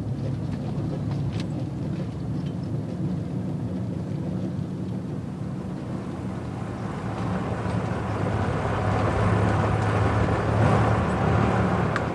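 Motor vehicle engine running while driving: a steady low hum, with more road and engine noise building from about seven seconds in.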